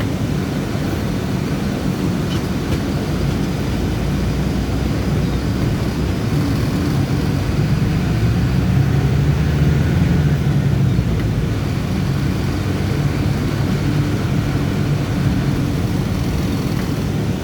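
Diesel city bus engine running as the bus drives, a steady low drone that gets a little louder and higher in pitch about halfway through.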